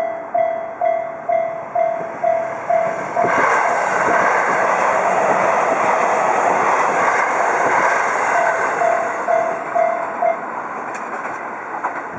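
Japanese JR railroad crossing's warning bell dinging about twice a second. A train then passes about three seconds in and its running noise drowns the bell. The bell shows through again near the end of the train's passing and stops about ten seconds in.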